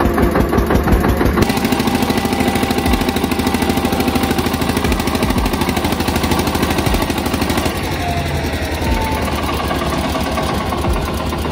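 Tractor diesel engine running steadily with a fast, even chugging.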